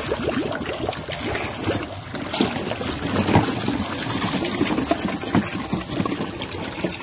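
Water trickling and lapping in a kawa, the large iron cauldron used as a hot bath, its surface stirred by a hand, in a dense run of small irregular splashes.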